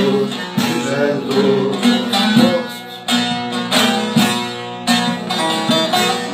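Two bağlamas (Turkish long-necked saz lutes) played together in an instrumental passage of a Turkish folk song, with plucked and strummed notes in a steady rhythm.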